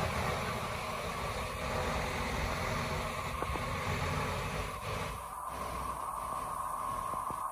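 Crane lifting a 20ft shipping container, its engine running steadily with a steady high hum over a low rumble.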